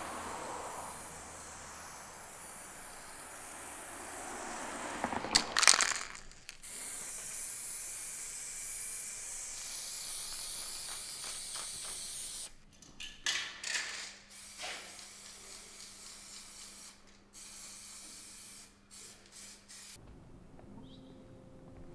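Aerosol spray-paint can hissing as graffiti is sprayed onto a wall: a long continuous spray, then a string of shorter bursts. A brief loud clatter comes about five seconds in, and the spraying stops about twenty seconds in.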